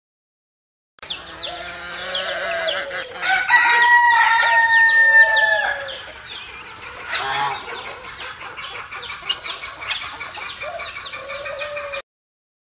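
Farmyard chickens: hens clucking over and over, with a long rooster crow a few seconds in as the loudest part. The sound starts suddenly about a second in and cuts off abruptly near the end.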